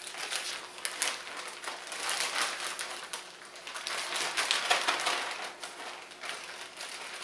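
Clear plastic bag crinkling and rustling in gloved hands as pieces of skirt steak are loaded into it, a busy run of crackles and small clicks that is busiest a little past halfway.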